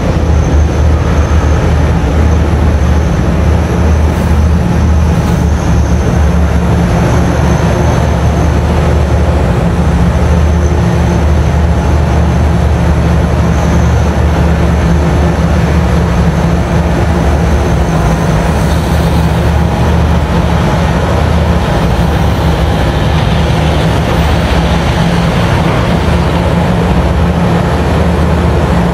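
Komatsu PC5500 mining excavator and the haul truck it is loading running together: a loud, steady, deep engine drone with an even hum, unchanging as the excavator swings and works its bucket.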